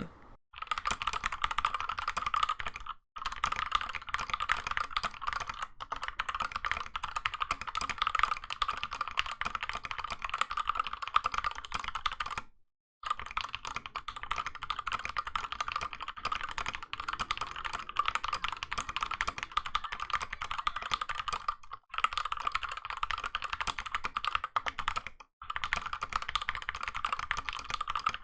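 Rapid, continuous typing on a 60% mechanical keyboard fitted with optical Gateron switches. The keys clatter densely, with a few brief pauses, the longest about 12.5 seconds in.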